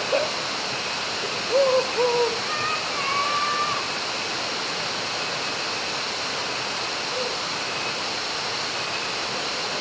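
Banyumala waterfall's steady rush of falling water, with a few short high calls about one and a half to four seconds in.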